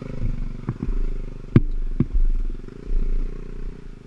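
Dirt bike engine running at low revs, rising and falling unevenly, with a few sharp knocks over it.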